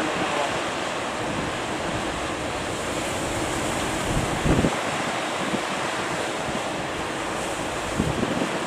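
Ocean surf breaking and washing steadily, with wind buffeting the microphone. A short, louder low thump comes about halfway through.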